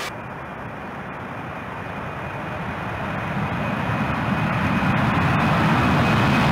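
Jet airliner sound effect: a steady rushing engine noise. It suddenly loses its high hiss at the start, then swells back louder over the next few seconds, with a faint high whine.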